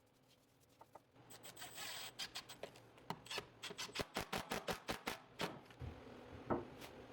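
Scraping and rubbing from hand work on wood, with many sharp irregular clicks, starting about a second in.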